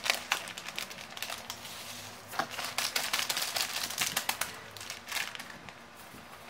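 Clear embossed plastic vacuum-seal bag crinkling and crackling in irregular bursts as a piece of beef rib inside is shaken and pushed down into it by hand.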